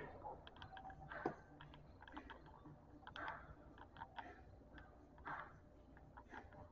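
Faint scattered clicks and a few soft rustles: small objects being handled and set down.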